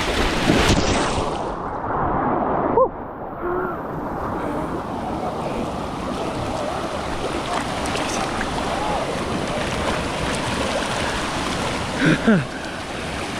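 Rushing water of a natural rock waterslide, heard close up while sliding down it in the current. About two seconds in the sound goes muffled for a moment before the full rush returns.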